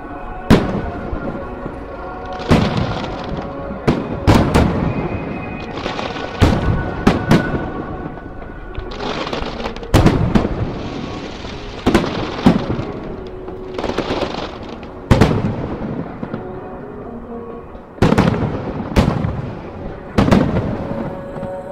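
Aerial firework shells bursting overhead: a dozen or more loud booms, one every one to two seconds, each trailing off in a long rolling echo.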